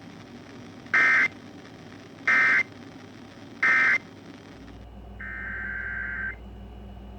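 Emergency Alert System end-of-message data bursts: three short, loud squawks of two-tone digital data about 1.3 seconds apart, marking the end of the alert. About a second later comes one quieter, longer burst of the same kind of data tones.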